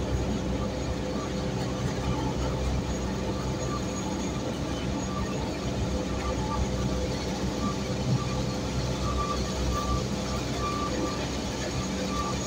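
Slow freight train of open-top hopper wagons rolling past on new track: a steady rumble of steel wheels on the rails.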